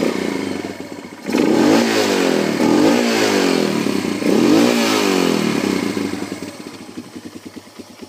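Honda Fat Cat's single-cylinder four-stroke engine revved up and down about three times with quick throttle blips, then dropping back to a steady, pulsing idle; the throttle answers quickly.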